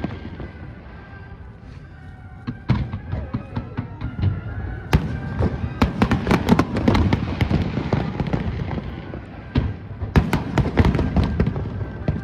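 Fireworks display: after a quieter few seconds under music, a few sharp bangs, then from about five seconds in a dense, rapid run of bursts with a short let-up near the end before they pile up again.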